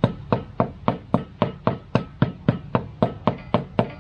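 Rapid, even knocking on a water-filled tractor tyre, about three to four dull knocks a second.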